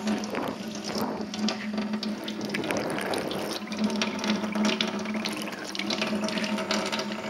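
Water from a kitchen mixer tap running and splashing over a waterproof camera held in the stream, with a steady low hum underneath.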